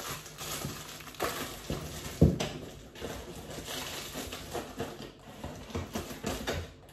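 Crinkling and rustling of skincare product packaging being handled and sorted, with scattered small taps and a firmer knock about two seconds in.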